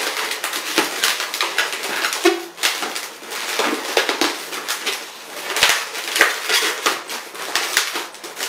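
A 260 latex modelling balloon squeaking and rubbing as it is wrapped around and twisted by hand: a dense run of short squeaks and crackles, with a few brief higher squeaks.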